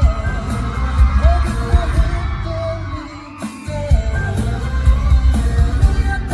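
Live amplified pop music with singing over a heavy bass and drum beat. The bass drops out briefly about three and a half seconds in, then comes back.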